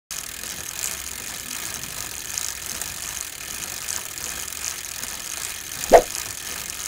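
Logo-intro sound effect: a steady hiss with light, irregular mechanical ticking, then a single sharp hit about six seconds in.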